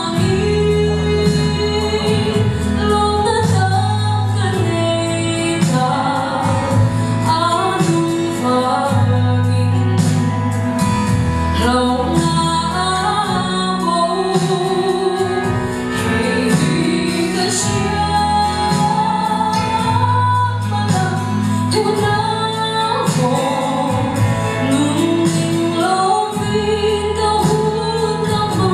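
A woman singing a Mizo gospel song solo into a microphone over an instrumental backing with held bass notes, heard through a PA system.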